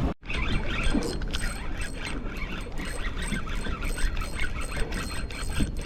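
Spinning fishing reel ratcheting with fast, continuous clicking as an angler fights a hooked fish, over low wind and boat rumble.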